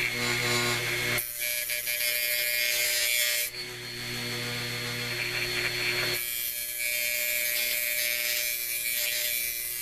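Metal wire-cutting wheel held against sandpaper glued to a spinning hard-drive platter: a high rasping hiss in two long passes, the first about a second in and the second from about six seconds on. Under it runs the steady hum of the running hard drive and computer power supply.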